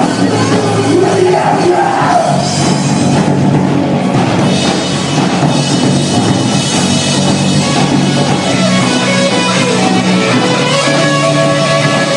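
Live rock band playing loudly on stage, with a drum kit and electric guitars.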